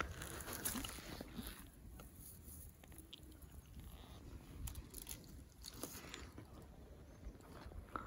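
Faint, scattered crunching and crackling of footsteps on dry reindeer lichen and pine litter.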